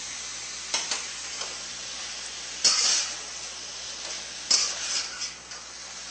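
Shrimp and vegetables sizzling in a hot wok while a metal ladle and spatula stir and toss them, with a steady frying hiss broken by about four sharp scrapes and sizzle bursts as the food is turned.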